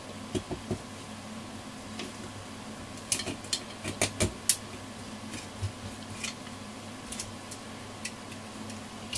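Scattered light clicks and taps of a screwdriver and a transistor radio amplifier board with a metal cover being handled while its screws are undone. The clicks come singly and in small groups, with a quick cluster about three to four and a half seconds in.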